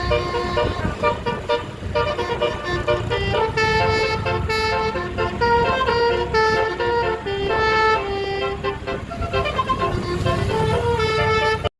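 Tour bus 'telolet' musical air horns playing a tune of short held notes that step from pitch to pitch, over the low rumble of bus engines and traffic. The sound breaks off for a moment just before the end.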